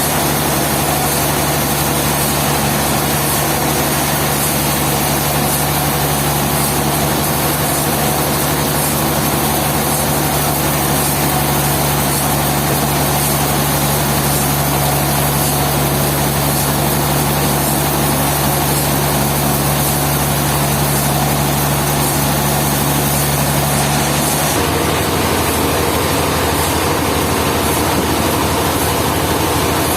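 A machine engine running steadily at a sawmill, with a constant low hum under a noisy wash. The hum's pitch changes abruptly about 24 seconds in.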